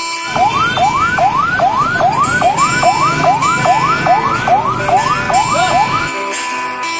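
Electronic vehicle siren in a fast yelp: rapid rising sweeps, about two and a half a second, that stop abruptly about six seconds in, leaving guitar music.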